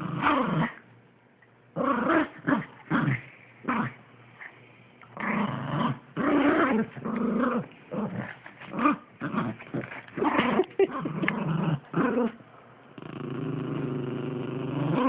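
Rat terriers play-growling over a tug-of-war toy: rough growls come in irregular bursts with short gaps, then one steady low growl is held for about two seconds near the end.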